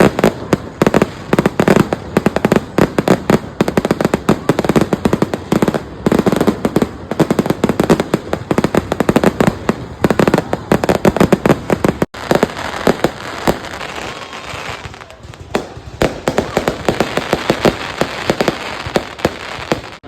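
Fireworks going off in a rapid, dense string of bangs and crackles. The sound drops out briefly about twelve seconds in, after which the bangs come less densely.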